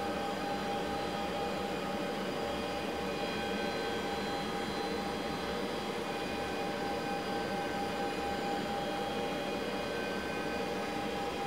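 1986 Kellenberger 600U cylindrical grinder running steadily, its spindles and hydraulics giving an even hum with a steady whine.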